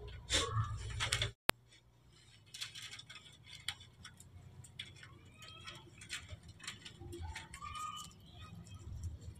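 Faint rustling and light clicks of leaves and twigs as a baby macaque climbs and feeds in a small bush, with a brief gap of silence about one and a half seconds in.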